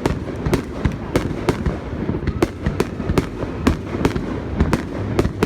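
Aerial fireworks exploding in quick succession: sharp bangs, about two or three a second, over a continuous low rumble of further bursts.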